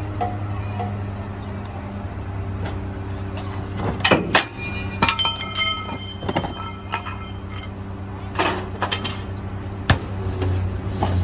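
Mack LR McNeilus rear-loader garbage truck's diesel engine running steadily. Over it, a series of sharp knocks and metallic bangs comes in from about four seconds in, some with a brief ringing, with a last loud bang near ten seconds.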